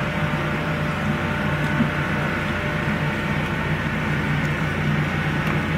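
A steady, low machine hum like an engine running, even in level throughout, with no distinct tool sounds standing out.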